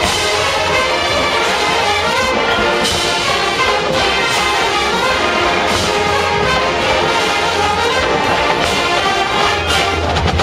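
Marching band playing: a massed brass section of trumpets and trombones carrying the tune over front-ensemble percussion, with occasional drum hits.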